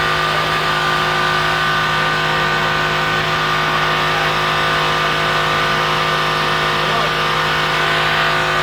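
Hurricane simulator booth's blower fan running at full blast: a loud, steady rush of wind with a constant motor hum and whine.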